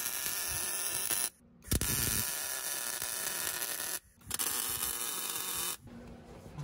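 Wire-feed welder laying beads on a steel rock slider: a steady crackling buzz of the arc in three runs, broken by short pauses about a second and a half in and about four seconds in. The arc stops near the end, leaving a faint low hum.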